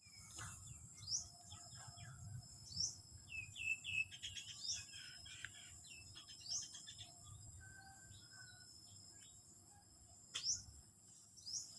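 Birds chirping: short upward-sweeping high calls repeated every second or two, with a quick flurry of chirps about three to five seconds in, over a steady high-pitched insect drone.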